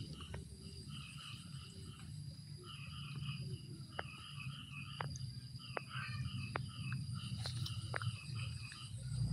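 Repeated short chirping animal calls in quick groups, over a steady high-pitched whine, with a few sharp clicks scattered through.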